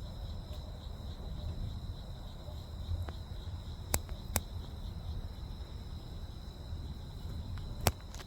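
Crickets trilling steadily over a low rumbling background noise, with a pair of sharp clicks about four seconds in and another near the end.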